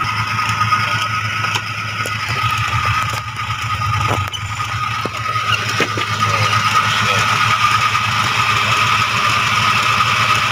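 Suzuki Carreta's 1.0-litre four-cylinder petrol engine idling steadily, heard up close with the engine cover open, running smoothly. A steady high-pitched tone runs over the engine note.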